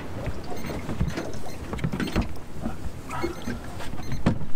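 Irregular knocks and rattles of fishing gear and a landing net against a small boat, over a steady low rumble of water and wind around the hull.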